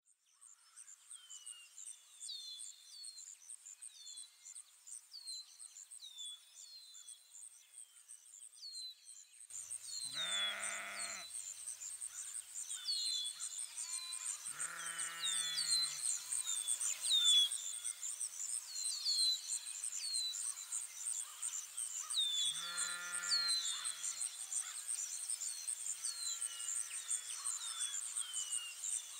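Countryside ambience fading in: a steady pulsing insect buzz and repeated short bird chirps, with a sheep bleating three times, about ten, fifteen and twenty-three seconds in.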